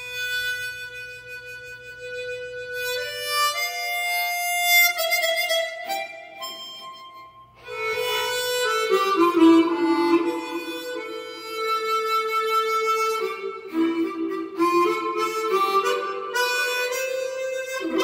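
Seydel Saxony chromatic harmonica with a Kettlewell frictionless slider mouthpiece, played solo: one long held note, then a rising run of notes, then after a brief break a melody with chords lower down. The player judges the instrument absolutely airtight.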